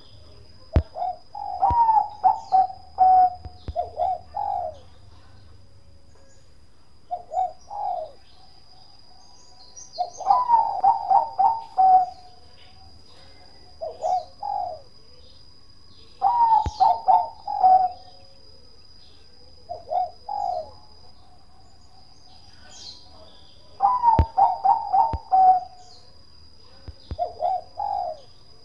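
Zebra dove, a Bangkok-bred perkutut, cooing: short phrases of quick staccato coos, each lasting one to two seconds, repeated every few seconds.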